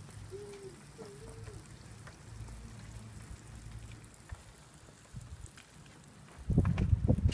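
Water spraying steadily from a handheld shower head fed by a PVC-pipe roof-rack tank, a fine hissing patter. Near the end, a brief burst of loud low rumbling thumps.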